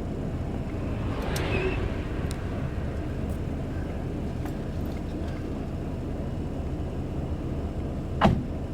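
Steady low rumble of a double-decker coach's Mercedes-Benz OM-457LA inline-six diesel running, with a single sharp knock near the end.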